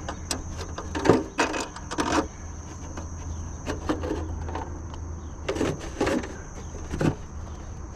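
A handful of scattered knocks and rattles from work being handled, the sharpest about a second in, over a steady high insect drone.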